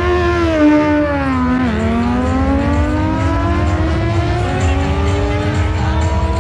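Medium-displacement motorcycle engines accelerating hard from a drag-race start. The pitch rises, drops sharply at a gear shift about a second and a half in, then climbs steadily through the next gear.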